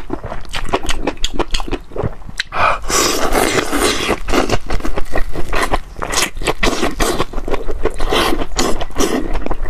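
Close-miked crunching and chewing of grilled green chili peppers: a rapid, irregular run of wet crunches and bites, louder and denser around three seconds in.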